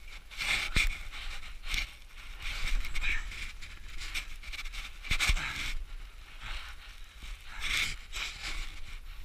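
A climber breathing hard, panting in short breaths about once a second while climbing steep snow. Two sharp thuds of gear or boots striking the snow come about a second in and about five seconds in, over a low rumble of wind on the microphone.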